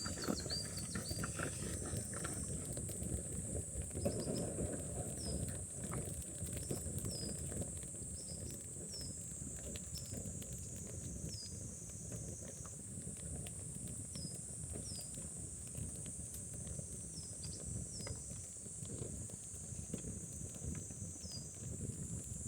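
Steady high-pitched insect chorus, with short falling chirps repeating about once a second, over the low crackle of a newly lit campfire.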